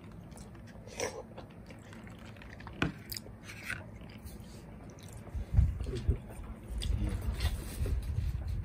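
A person chewing a mouthful of raw fish sashimi close to the microphone. A few small clicks come in the first half; the chewing gets louder from about halfway through.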